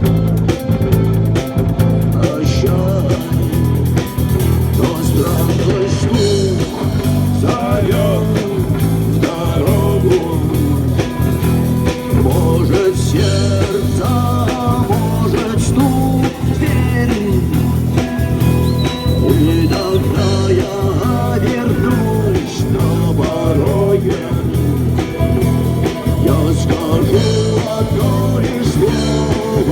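Rock band playing live: electric guitar melody lines over a steady bass and drum beat.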